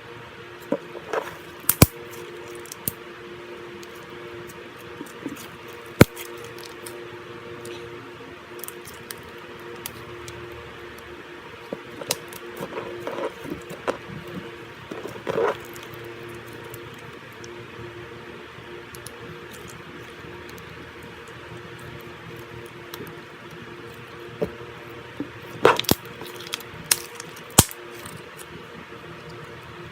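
Slime being squished and played with: wet squelches and sharp clicks and pops come in scattered clusters, about a second in, around the middle, and near the end, over a steady faint hum.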